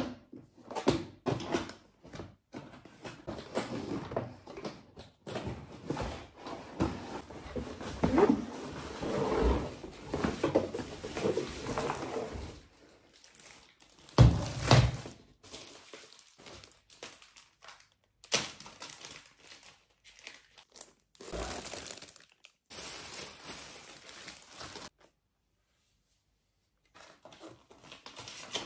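Plastic wrapping crinkling and a cardboard box being handled as an LED ring light and its tripod are unpacked, with scattered knocks and a heavier thump about fourteen seconds in.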